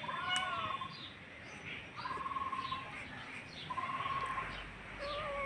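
Cat up in a tree mewing repeatedly: four drawn-out, wavering mews about every second and a half. Birds chirp faintly in the background.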